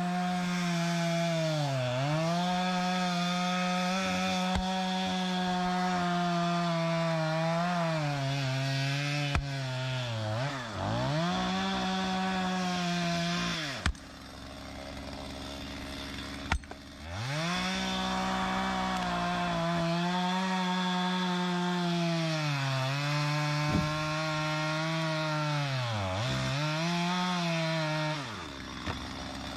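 Chainsaw running at high revs cutting into a dead beech log, its pitch dipping again and again as the chain bogs down in the wood. About halfway through it drops back for a few seconds, then cuts again until it dies down near the end, with a few sharp knocks of wood in between.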